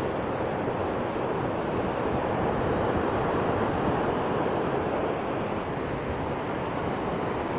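Mountain stream cascading over boulders below a small waterfall: a steady rush of white water.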